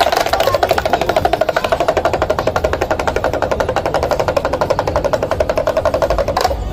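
Monkey-show performer's damru, a hand-held pellet drum, rattled fast in an even, rapid drumroll of roughly a dozen beats a second. It cuts off suddenly near the end.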